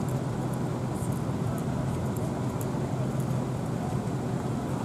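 Steady low rumble of distant city traffic, with faint high ticks over it.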